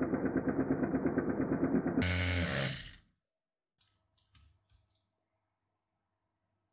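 Four Lego Technic XL motors driving a 40:8 gear train at about 8,000 rpm, a loud mechanical whine with a rapid pulsing. About two seconds in the sound changes and dies away within a second, leaving near silence with a few faint light clicks.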